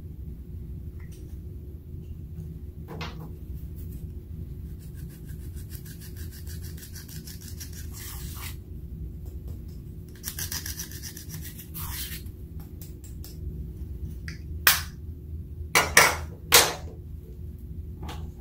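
A stick scraping pressed metallic eyeshadow out of its compact pan, in quick, even strokes and then denser scratching, over a steady low hum. A few sharp clicks near the end are the loudest sounds.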